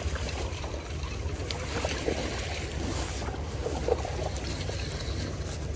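Shallow creek water flowing fast over gravel, with a steady low rumble and a couple of sharper splashes, about two and four seconds in, as a hooked coho salmon thrashes at the surface.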